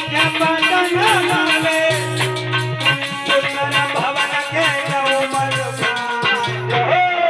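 Instrumental interlude of Aalha folk music: a lead instrument playing bending, ornamented melody lines over a steady bass note, with fast, even rattling percussion keeping time.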